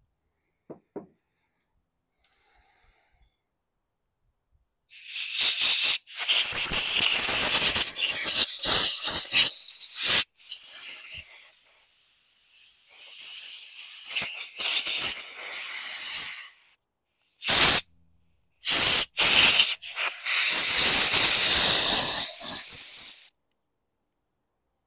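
Repeated hissing blasts from a pressurised nozzle cleaning out a small-engine carburetor's passages, in bursts of about one to four seconds with short gaps, starting about five seconds in.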